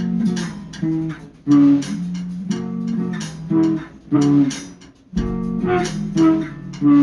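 Background music: guitar chords played in a steady rhythm, about one strum a second.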